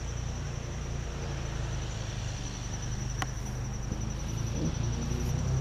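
Insects trilling: one steady, rapidly pulsing high-pitched buzz over a low steady rumble, with a single sharp click about three seconds in.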